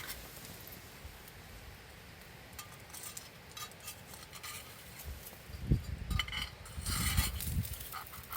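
Cooking utensils clinking and scraping against an iron griddle over the embers, in scattered light clicks, with a cluster of louder knocks and clatter from about six to seven and a half seconds in.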